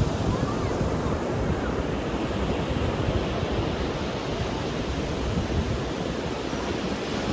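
Ocean surf washing steadily onto a beach, a continuous rush of waves with no single breaker standing out, and a low rumble of wind on the microphone.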